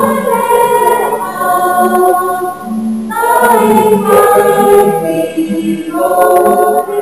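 Background music: a choir singing in long held chords, with new phrases coming in about three and six seconds in.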